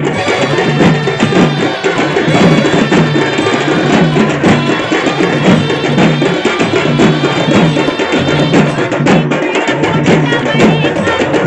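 Loud percussion-led karagam dance music: fast, dense drumming with a steady, repeating beat.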